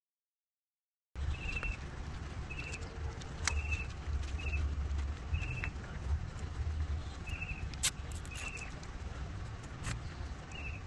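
Hands working cable ties and wiring on an e-bike frame, with a few sharp clicks; one comes about ten seconds in, as flush cutters snip a zip tie. A bird chirps in short bursts about once a second over a steady low rumble. The first second is silent.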